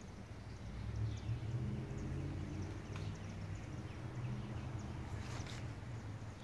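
Outdoor background: a low, steady hum with a few faint, short high chirps, one of them a little louder about five seconds in.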